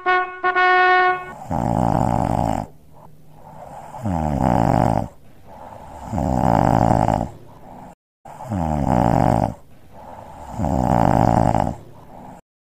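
A cartoon snoring sound effect: five long, loud snores about two seconds apart. A short trumpet-like note sounds in the first second.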